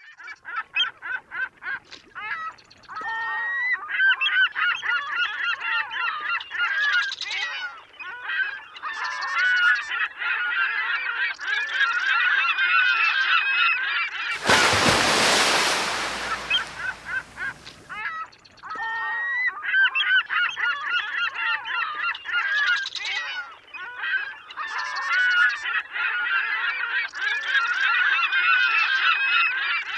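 A large flock of birds honking and calling over one another without pause. The calls are broken about halfway through by a few seconds of loud rushing noise.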